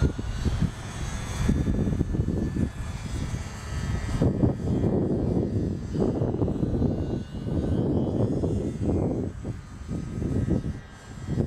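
Engine of a radio-controlled model airplane in flight, a faint whine that slowly slides in pitch as it passes overhead. A loud, uneven low rumble that swells and dips lies over it.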